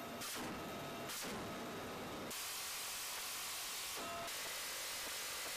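Steady hiss like radio static. For the first two seconds a faint high tone and a few short bursts of noise sit over it, then it settles into an even hiss.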